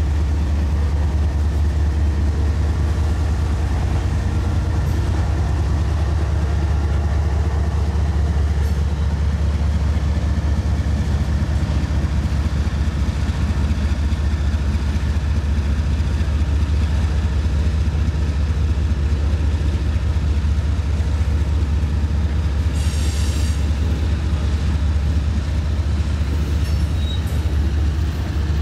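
Covered hopper cars of a freight train rolling past with a steady low rumble and fast clicking of wheels over the rail. A brief high screech of wheel squeal comes near the end.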